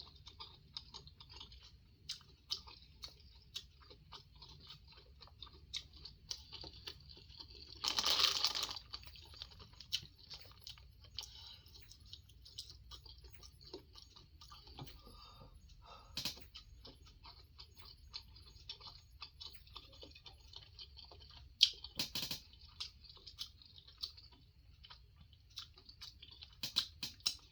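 Close-up chewing and mouth sounds of someone eating seafood boil: soft irregular smacks and crunches throughout. A short, louder noisy burst comes about eight seconds in, and a few sharp clicks follow later, the loudest a little after twenty seconds in.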